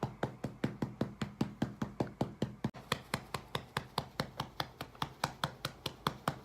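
A hand patting a baby's back to bring up a burp: quick, even pats, about five a second.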